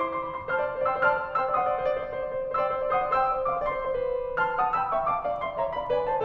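Solo piano music: a melody of single notes over held chords.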